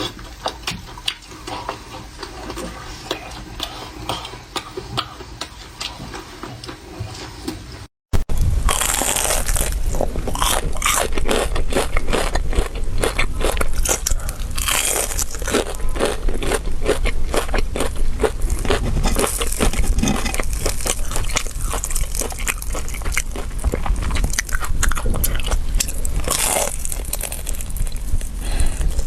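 Close-miked biting and chewing of crunchy food, a run of crisp crunches. About eight seconds in, the sound cuts out briefly; after that the crunching is louder and denser.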